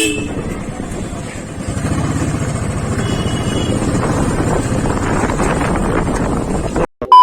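Motorcycle engine running steadily while riding, with wind on the microphone. Near the end the sound cuts out briefly and a loud steady beep begins.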